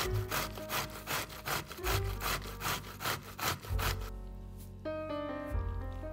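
Vegetable being grated on a grater: even rasping strokes, about three or four a second, that stop about four seconds in.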